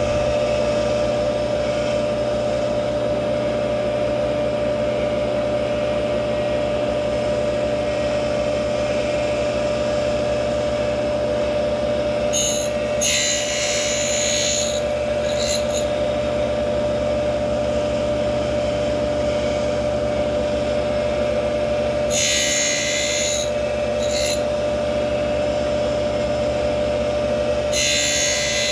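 A tool post grinder runs steadily with a constant whine while its wheel grinds the teeth of a horizontal mill cutter. The wheel bites into a tooth three times, each time with a hissing rasp lasting a couple of seconds: about twelve seconds in, about twenty-two seconds in, and near the end.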